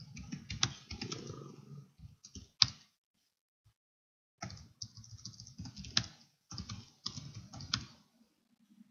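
Typing on a computer keyboard: a run of keystrokes, a pause of about two seconds, then a second run, with a few sharper, louder key presses among them.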